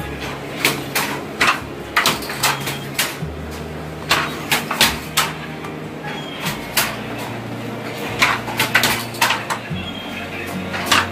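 Wooden handloom weaving silk: sharp wooden clacks of the shuttle and the beater striking, in quick irregular clusters of a few per second with short pauses between.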